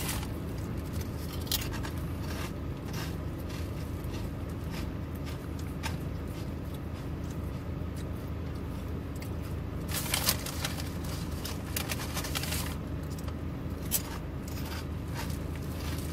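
Steady low hum inside a car, with scattered brief crinkling and scraping sounds from food and its wrapping being handled while eating. The crinkles are strongest about ten seconds in and again near fourteen seconds.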